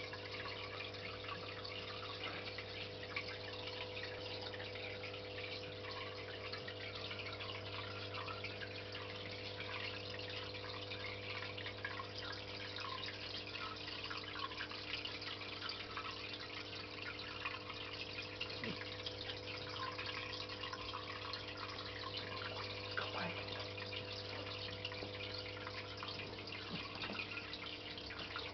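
Aquarium pump humming steadily, with water trickling and dripping continuously in the tank.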